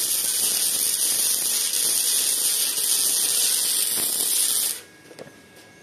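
Parkside PIFDS 120 B2 flux-core wire welder's arc running a fillet bead: a steady, crackling hiss that cuts off sharply about five seconds in.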